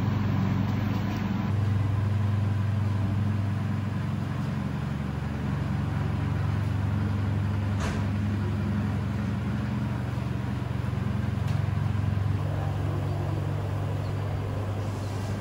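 A steady low electric motor hum, with one faint click about halfway through.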